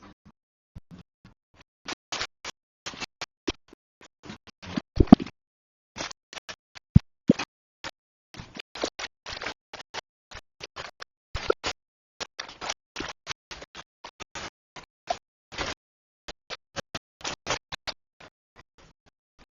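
Irregular run of short clicks, knocks and scrapes of kitchen utensils and cookware being handled, with a few louder knocks about five and seven seconds in.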